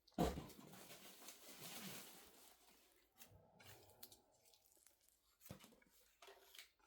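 Packaging being removed from a new coffee maker: a knock, then about two seconds of rustling and tearing, followed by lighter clicks and one sharp thump about five and a half seconds in.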